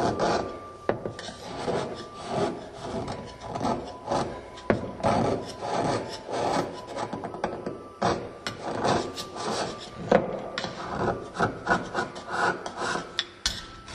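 Long-handled steel chisel carving an Ogatsu slate ink stone, scraping across the stone in a steady run of short strokes, about two a second.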